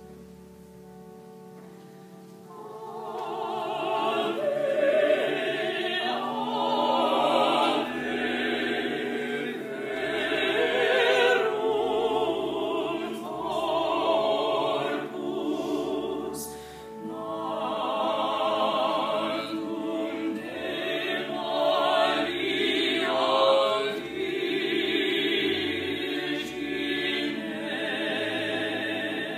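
A mixed vocal quartet of two women and two men singing in harmony in a classical choral style. The voices enter about two and a half seconds in, after soft held instrumental tones.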